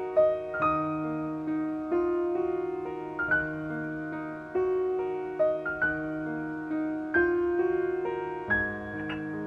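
Background piano music: an unhurried solo piano melody, with a new note struck about once a second over sustained chords.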